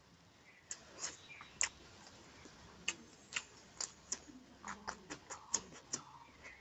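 Close-up mouth sounds of someone eating pork curry: irregular wet clicks and smacks of chewing, growing more frequent about halfway through.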